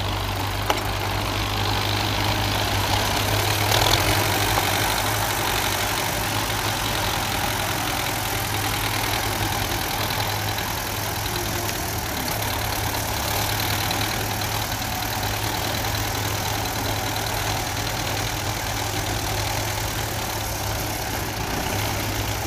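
Belarus tractor's four-cylinder diesel engine running steadily with a constant low hum as it pulls a disc plough through the soil.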